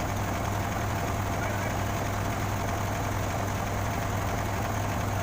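A crane's engine idling steadily with an even low hum.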